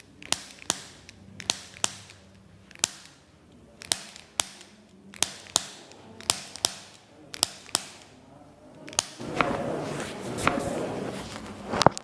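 Chiropractic adjustment clicks: a quick series of sharp cracks, mostly in pairs about a third of a second apart, some thirteen in the first eight seconds. After that come a couple of seconds of soft noise, then one loud crack near the end.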